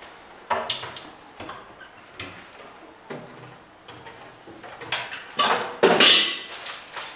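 Drawers and cupboard doors being opened and shut while someone rummages: a series of knocks, slides and scrapes. The loudest, longest scraping comes about six seconds in.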